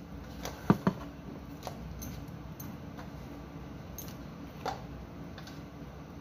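A spoon clinking and knocking against a cooking pan while thin curry broth is stirred: two sharp clinks just under a second in, then scattered lighter ones, over a steady low hum.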